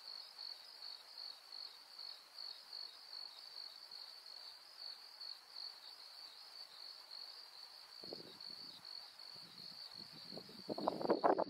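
Insects chirping in a steady, pulsing high-pitched trill. A few faint rustles come in after about eight seconds, and near the end a louder rustling, crackling noise rises over the chirping.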